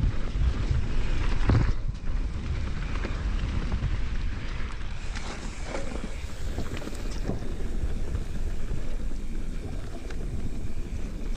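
Wind buffeting the GoPro microphone as a mountain bike rides fast down a dirt trail, with the rumble of the ride and scattered knocks and rattles from the bike over bumps. It is loudest in the first two seconds, then settles to a steadier rush.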